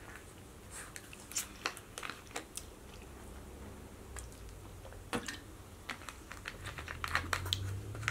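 Faint close-up eating and drinking sounds: chewing and sips from a plastic drink bottle, with scattered small clicks and taps. A quick run of clicks comes near the end as the bottle is handled.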